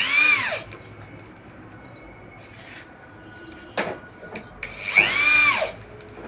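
Electric drill driving screws into the board's wooden edge strip in two short bursts, the first at the very start and the second about five seconds in. In each burst the motor whines up and then drops away, and there is a sharp knock between them.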